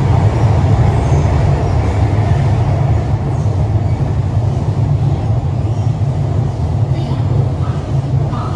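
Shanghai Metro 13A01-type train running between stations, heard from inside the car: a steady loud rumble of wheels on rail and running gear, strongest in the low range, easing slightly in loudness after the midpoint.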